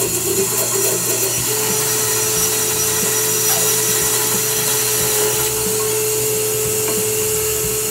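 Band saw running steadily while trimming the protruding top of a hard maple hammer handle flush with the head. A steady tone joins the running noise about a second and a half in.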